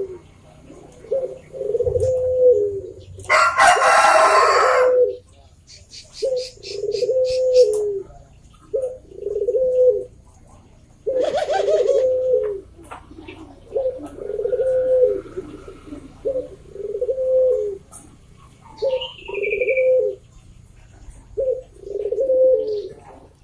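Puter (Barbary dove) cooing over and over, each phrase a short note followed by a longer, rolling coo, about every two seconds. A louder, noisier call from another bird cuts in about three seconds in and again near the middle. A rapid high ticking and a brief falling whistle sound faintly in the background.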